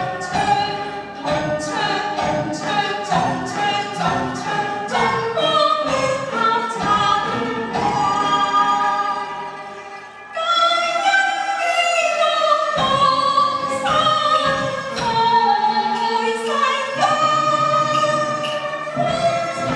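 A female soloist sings a Chinese Christmas hymn with a Chinese traditional orchestra of erhu, pipa and other bowed and plucked instruments. For about ten seconds the music moves in quick, even beats, then it dips briefly and the singer holds long notes over the orchestra.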